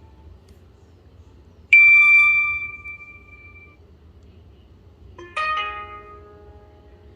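Two short BlackBerry Curve 8520 alert tones: a single bell-like ding about two seconds in, then a different chime with several tones a little after five seconds, each ringing out over a second or two.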